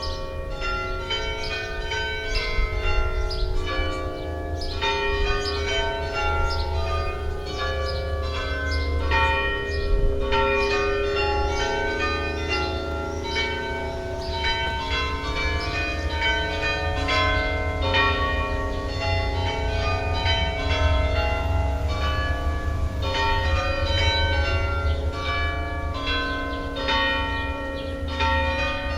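Church bells pealing, with rapid overlapping strikes that ring on into one another, over a steady low rumble.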